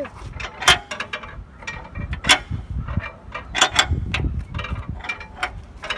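Irregular mechanical clicking and clunking, like a ratchet or gears, from a stiff hand-worked mechanism being moved, with a low rumble around the middle.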